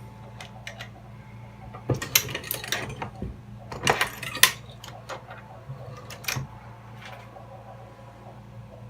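Metallic clicks and clatter from a Dillon XL650 reloading press while its 9 mm crimp die is being adjusted, in clusters about two, four and six seconds in, over a low steady hum.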